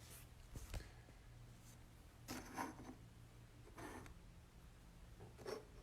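Faint, brief rustles and scrapes of trading cards being handled and slid in and out of plastic sleeves, about five times, over a low steady hum.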